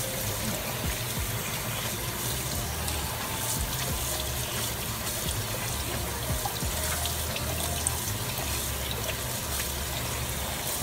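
Kitchen faucet running steadily onto cooked rice in a stainless steel colander, the water splashing through the holes and down the sink drain as a hand rubs the rice. The rice is being rinsed until the water runs clear, to wash off starch.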